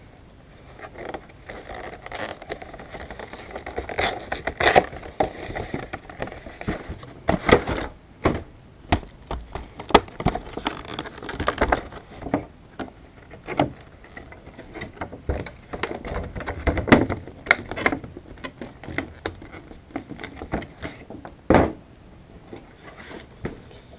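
A cardboard trading-card collection box being opened by hand and its clear plastic insert handled: irregular scrapes, crinkles and sharp clicks.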